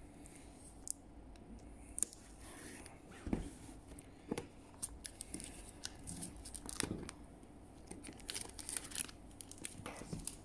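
Plastic shrink-wrap on a product box being slit with a cutting tool and peeled off, in irregular short scrapes, crinkles and small clicks.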